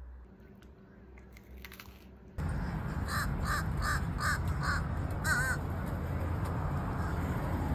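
A bird calling: a quick run of five short calls, then one more, starting about three seconds in. Under them is a steady rushing noise that begins suddenly about two and a half seconds in.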